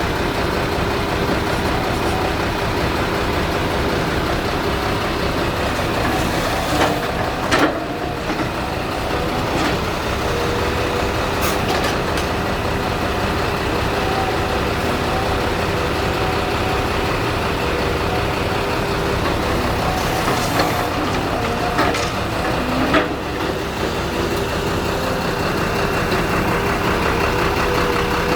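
Heavy diesel machinery running steadily, with a few sharp clanks about seven or eight seconds in, again near eleven seconds, and twice more after twenty seconds.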